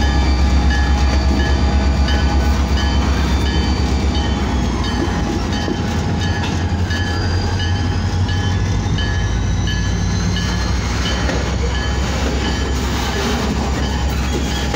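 A diesel-hauled freight train rolls slowly through a grade crossing. The heavy locomotive engine rumble eases after about five seconds, giving way to the rumble and clatter of freight cars on the rails, while the crossing bell rings on in steady, even strokes.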